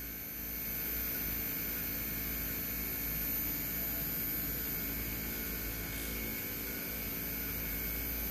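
Two inverter-driven air-conditioner compressors running steadily with no refrigerant load, giving a steady hum with several steady tones over a low rumble.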